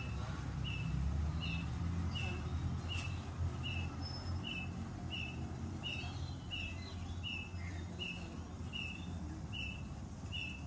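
A bird repeating one short, slightly falling chirp at an even pace, about once every three-quarters of a second, over a steady low background rumble.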